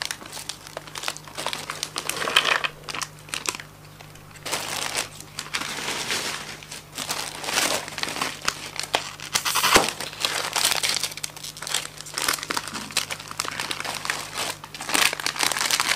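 Plastic snack wrappers crinkling and crackling as small ciki packets are handled and opened, irregular and on and off, with one sharp snap a little past the middle.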